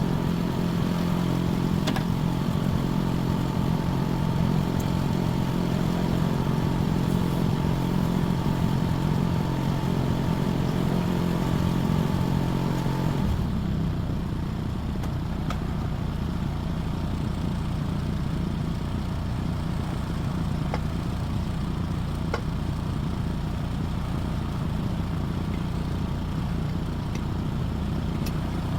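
Engine running steadily. About 13 seconds in, its sound drops a little and settles, and a few sharp clinks come through.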